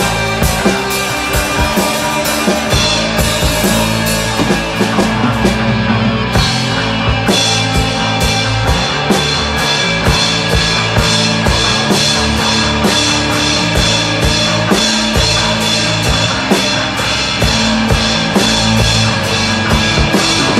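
Improvised instrumental rock played by an electric guitar, bass guitar and drum kit, with the drums keeping a steady, driving beat. The cymbals drop out briefly about six seconds in, then come back.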